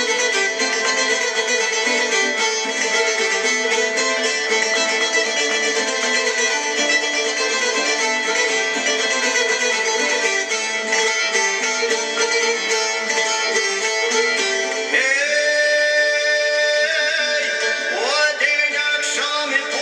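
Albanian folk song: a plucked string instrument plays a quick melody, and a male voice comes in singing about 15 seconds in.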